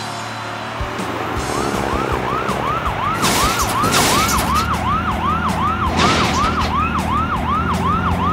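Electronic toy police siren in a fast yelp, a rising-and-falling wail repeating about three times a second, starting about two seconds in. Two short bursts of hiss cut in partway through.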